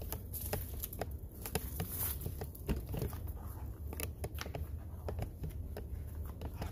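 Footsteps of someone walking on concrete: a scatter of irregular light taps and scuffs over a steady low rumble.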